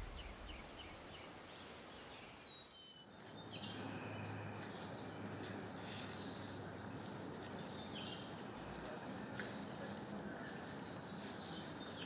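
Tropical forest ambience: a steady high-pitched hum of insects, with a quick run of short, high bird chirps a little past halfway.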